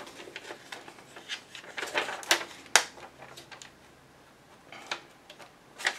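Rummaging through stored sticker packs: soft rustling and handling with a few sharp clicks and knocks, the loudest a little before the middle.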